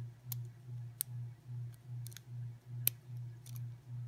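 Light metallic clicks of a hook pick lifting and setting pins in a Squire SAL-40 padlock's pin-tumbler lock, about five sharp ticks with the loudest near three seconds in. Under them is a low hum that swells and fades evenly about two and a half times a second.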